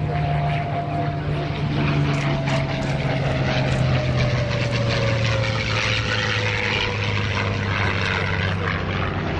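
Propeller-driven WWII piston-engine warbird flying past low. The engine drone slowly falls in pitch as it passes.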